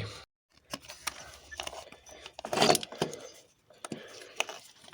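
Scattered metallic clicks and knocks as a diesel common-rail high-pressure fuel pump is shifted and worked loose in the engine bay, with a louder scrape about two and a half seconds in.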